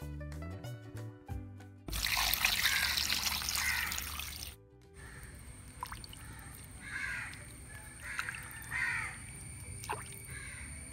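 Background music that stops about two seconds in. Then water splashing and trickling as raw chicken pieces are washed by hand in a pot of water, loudest for the first couple of seconds, with crows cawing several times behind it.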